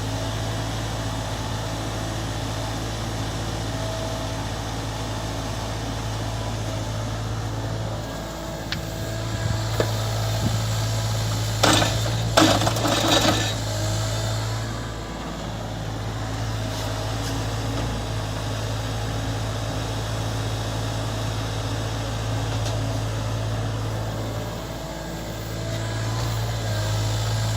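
SANY mini excavator's diesel engine running steadily, with a burst of metallic clanking and knocks about halfway through.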